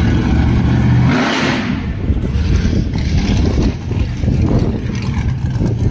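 Loud car engine running and revving, with a brief rush of noise about a second in, then a rough, uneven exhaust note.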